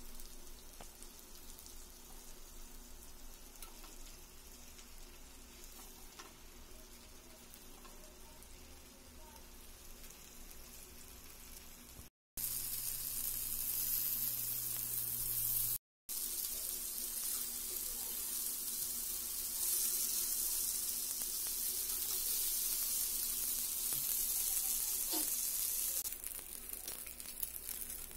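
Chicken leg pieces in a curd-and-spice marinade frying in oil on a flat tawa, a steady sizzle that grows louder and brighter about twelve seconds in and eases off near the end.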